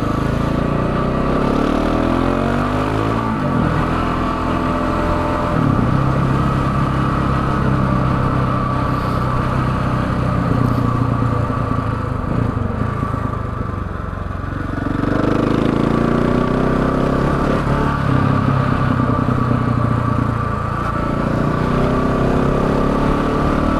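KTM 690 Enduro's single-cylinder four-stroke engine running on the road: the engine note falls in the first few seconds, holds steady, then drops about fourteen seconds in and rises again as the bike picks up speed.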